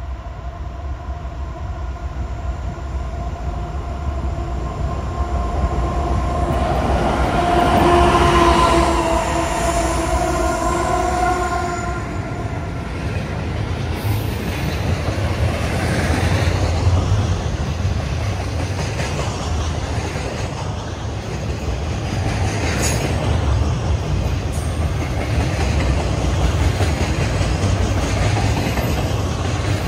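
A passing train. Its horn sounds a held multi-note chord that grows louder, peaks about eight to twelve seconds in, then stops. The train's rumble and the rhythmic clatter of wheels over rail joints follow.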